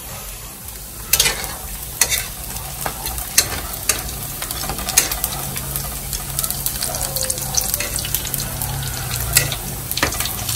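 Pork back fat deep-frying for chicharon in a wok of hot oil, sizzling and crackling with scattered sharp pops, which the cook puts down to moisture still left in the fat. A spatula stirs and turns the pieces in the oil.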